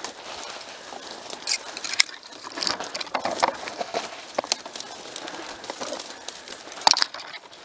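Dry brush and branches rustling and snapping as a person pushes through thick scrub, with irregular twig snaps and a couple of sharper cracks, one about two seconds in and one near the end.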